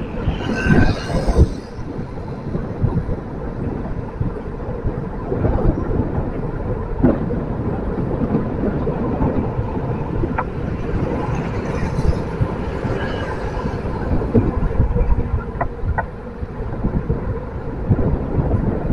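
Wind buffeting the microphone on a moving bike over a steady low rumble of road and traffic, with brief swells of hiss near the start and again about twelve seconds in.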